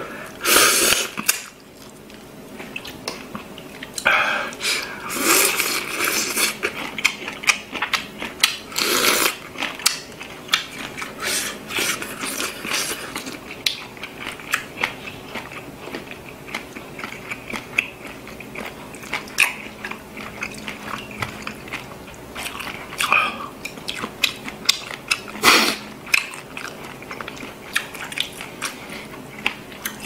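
Close-miked chewing and biting as a man eats seafood kimchi kalguksu, biting into shrimp and working noodles, with wet mouth clicks throughout and a few louder, noisier bursts scattered through.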